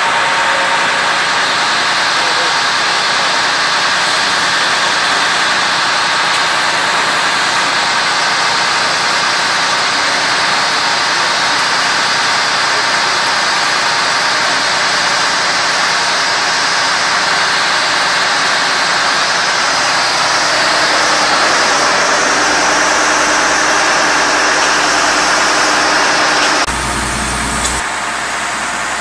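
Diesel engine of a 1993 Wirtgen 1000VC cold milling machine running steadily, a dense mechanical din that drops somewhat in loudness near the end.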